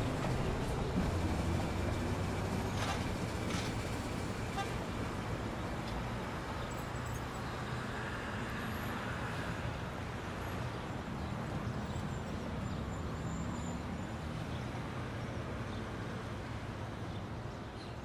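Road traffic: a motor vehicle's engine rumble, loudest at first and slowly fading, over street noise. A few faint clicks come about three to five seconds in.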